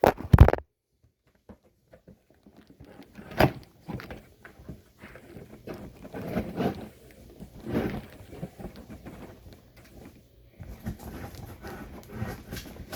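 Cutting and pulling at packing tape on a cardboard box: a loud scrape at the start, a sharp snap about three seconds in, and irregular scraping and rustling of cardboard after it. The tape is tough and there is a lot of it.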